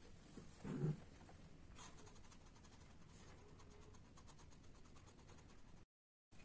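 A cat gives one short, low cry about a second in while mating, over faint room hiss. The audio cuts out for a moment near the end.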